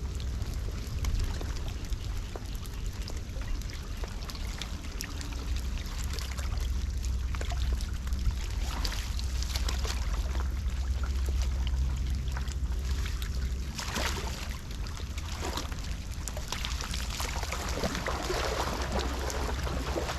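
Floodwater pouring and trickling into a street drain over a steady low rumble, with scattered short clicks.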